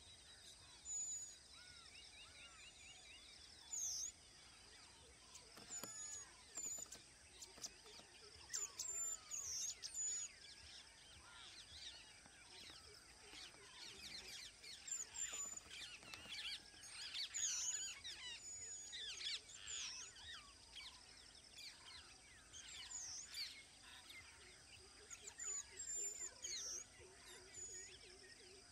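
Wild birds chirping and whistling, many short calls overlapping and busiest through the middle, over a steady high-pitched hum.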